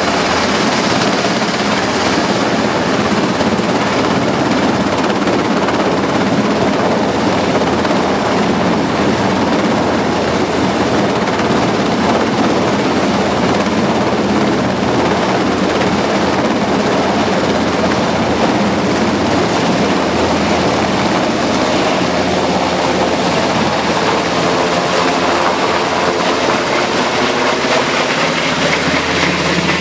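Sikorsky S-92 helicopter's twin turboshaft engines and main rotor running at high power as it lifts off and climbs away: a loud, steady rotor and engine noise with a thin high whine above it.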